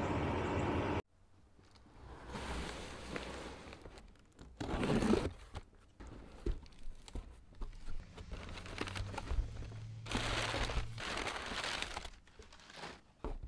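A steady noise that cuts off abruptly about a second in, then hands-on handling noises: irregular crinkling, rustling and scattered knocks, loudest about five seconds in.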